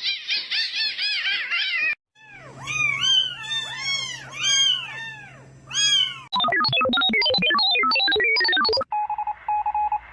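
Cat meowing over and over in a series of short cuts, the pitch of each cry rising and falling. Near the end there is a short pulsing electronic beep.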